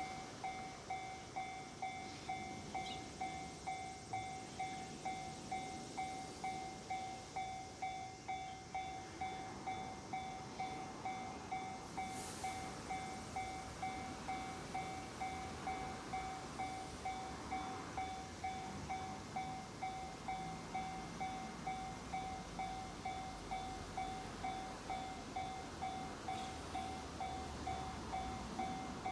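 Japanese railway level-crossing warning bell ringing, an evenly repeated electronic ding about one and a half times a second. A low rumble of an approaching train grows under it near the end.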